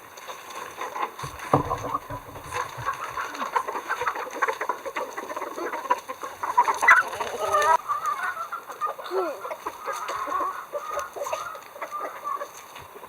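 A flock of free-range chickens clucking, with many short calls overlapping.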